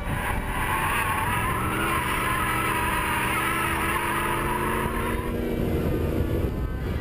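Tyres squealing in a sustained drift over the steady running of a Chevy ZZ4 small-block V8 in a Porsche 914, held at even revs; the squeal stops about five seconds in while the engine runs on.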